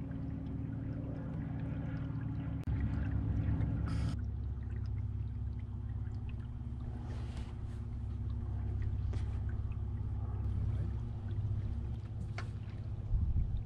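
Canoe gliding along a river: water lapping and trickling against the hull, with a few brief splashes, over a steady low rumble.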